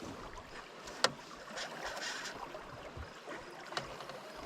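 Low water sloshing against a small boat's hull, with a sharp click about a second in and another near the end.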